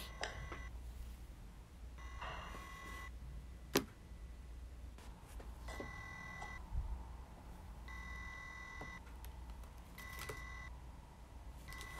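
Electronic beeps from a hacked plush elephant toy: a steady buzzer-like tone lasting under a second, repeated about every two seconds, five or six times. A few sharp clicks and taps from handling come between the beeps, the loudest about four seconds in.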